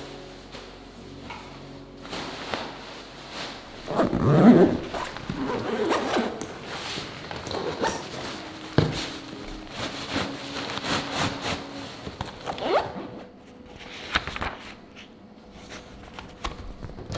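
Backpack being packed: zippers drawn and nylon gear rustling and being stuffed in, with a few knocks, loudest about four seconds in. Near the end, the softer flick of paper pages being leafed.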